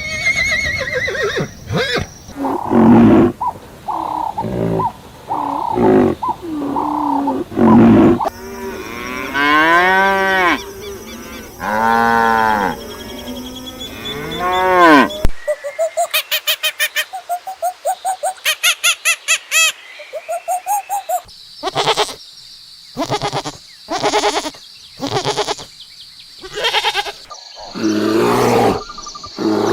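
A run of different animal calls, one clip after another, with abrupt cuts between them. Pitched, arching calls in the first half give way to rapid pulsed calls and then to separate short loud calls.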